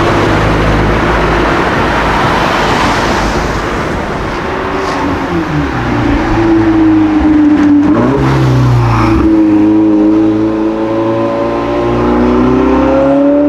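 A car engine running loud, a rough roar at first, then its note rising and falling several times as the revs change.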